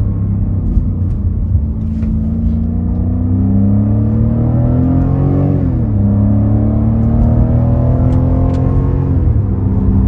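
BMW F90 M5's twin-turbo V8 heard from inside the cabin under acceleration: the engine note climbs steadily, drops quickly at an upshift about halfway through, climbs again, and drops at a second upshift near the end.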